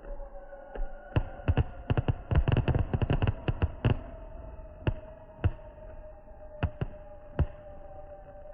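Fireworks going off: a few single bangs, then a rapid run of bangs about two to four seconds in, then a handful of spaced bangs.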